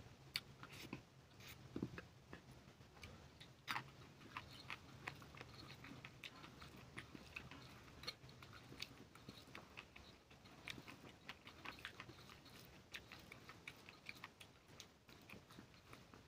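Faint close-up eating sounds: chewing and biting, with fingers mixing rice and curry on a steel plate, heard as many small irregular clicks and soft scrapes over a low steady hum.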